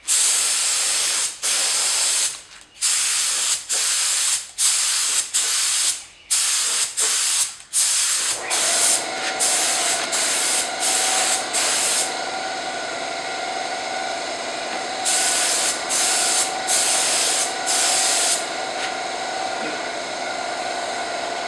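Compressed-air hiss of a Central Pneumatic HVLP spray gun spraying paint in repeated short bursts of about a second or less, the trigger pulled and released, with its flow opened as wide as it goes. About eight seconds in, a small air compressor starts running with a steady hum under the spraying. The hissing stops for a few seconds in the middle, then returns briefly, and near the end only the compressor runs.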